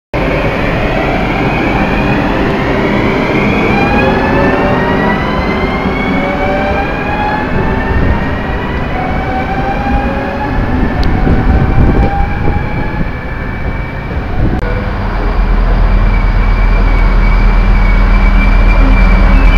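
NS double-deck electric train pulling away, its traction motors whining in several tones that rise steadily in pitch as it speeds up, over a rumble of wheels. About fifteen seconds in the sound changes to a steady deep drone and hum from an idling diesel LINT railcar.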